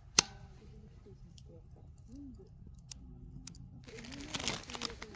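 A single sharp click, then a few faint ticks, and from about four seconds in a stretch of rustling and crinkling, as of something being handled and unwrapped.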